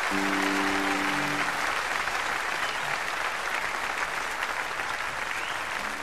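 Audience applauding at the end of a live song, with a last held musical note ringing during the first second and a half.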